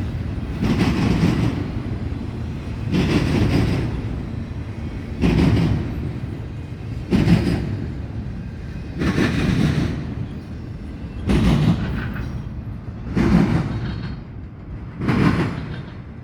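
Intermodal freight cars rolling past on steel rails, with a steady rumble and a clattering burst of wheels about every two seconds as each car's trucks go by.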